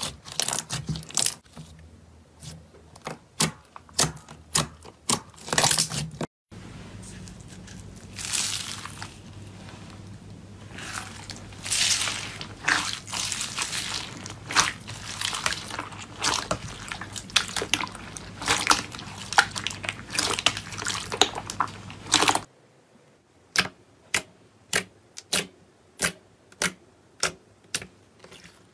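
Slime being squished and poked by hand, making sticky clicks and pops. It changes abruptly twice: first to a denser crackling over a low hum, then to evenly spaced clicks about two a second.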